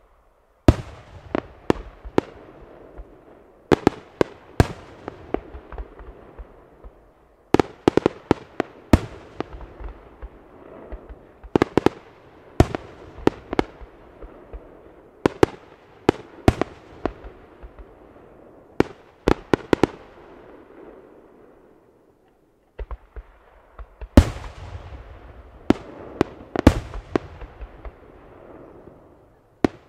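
Aerial firework shells bursting overhead: sharp bangs in quick clusters, each group trailing into a rolling echo, with a brief lull about three quarters of the way through.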